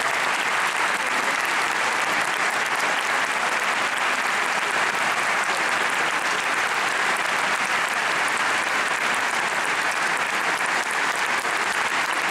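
Concert hall audience applauding steadily, dense clapping with hands clapping close by.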